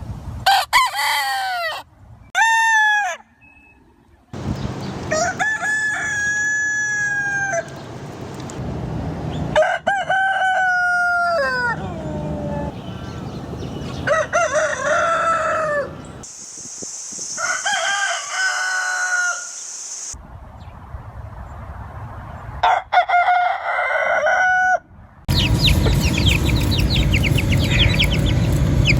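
Rooster crowing, about seven separate crows one after another, each one to three seconds long and cut off abruptly between clips. Near the end comes a busier, noisier stretch of many short calls.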